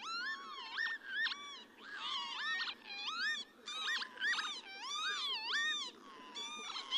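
Several northern lapwings calling: slurred 'pee-wit' calls rising and falling in pitch, overlapping one another in quick succession.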